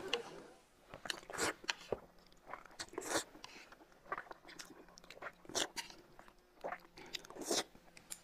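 Close-miked eating sounds: chewing and crunching, with scattered short clicks and scrapes of a metal spoon against a tin can and a glass of corn soup.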